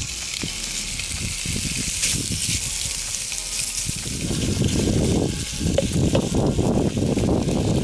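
Raw bacon pieces sizzling in a hot cast iron Dutch oven as a steady hiss. From about halfway through, a wooden spoon scrapes and pushes the pieces around the pot.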